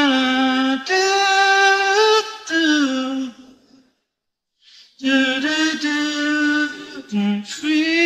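An unaccompanied male voice sings long held notes without instruments. It stops for about a second near the middle and then starts again.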